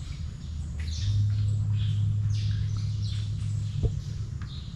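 Small birds chirping in a mangrove forest, with quick high calls that drop in pitch, several a second, over a steady low hum that grows louder about a second in. There is a single sharp click just before the end.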